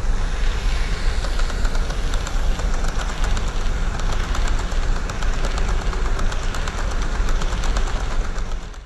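HO-gauge KATO EF65 1000 model electric locomotive and its coaches running along the track: a steady rumble with a rapid, even patter of fine clicks from the wheels on the rails.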